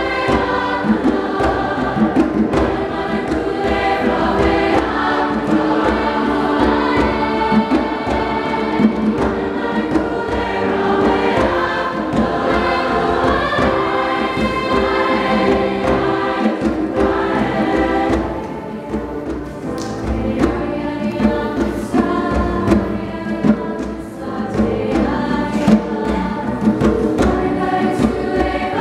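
Large mixed-voice school choir singing in many parts, dropping to a softer passage about two-thirds of the way through before swelling again.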